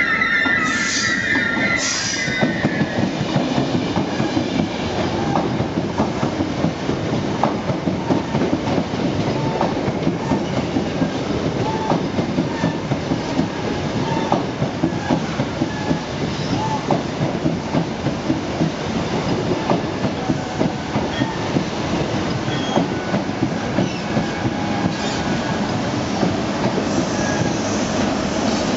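A Class 90 electric locomotive's train of Mk3 passenger coaches passing close by, its wheels rumbling and clattering rhythmically over the rail joints and pointwork. Two short high-pitched sounds come about one and two seconds in.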